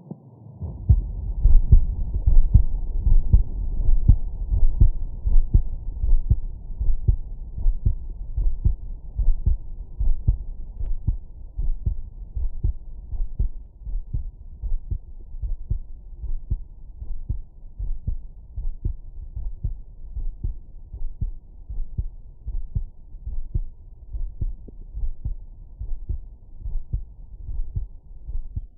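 Normal heart sounds heard through a stethoscope: a fast, even run of low thumps over a low rumble. They start about a second in and grow somewhat quieter after the first dozen seconds.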